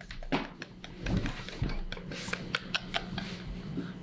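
A man and a woman laughing hard in breathless bursts without words, with scattered sharp knocks and clicks.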